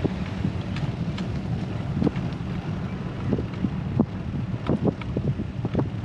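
Wind rushing over the microphone of a camera riding on a moving bicycle, with a steady low rumble and scattered light clicks and knocks that come more often near the end.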